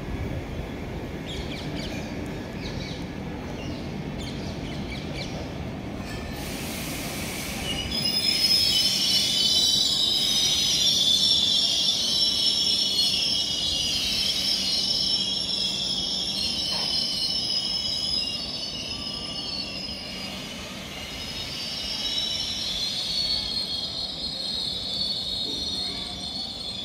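Express train of LHB coaches rolling out and away along the track, wheels rumbling on the rails. From about eight seconds in a wavering high-pitched wheel squeal rises over the rumble and is the loudest sound; it eases briefly, then returns near the end.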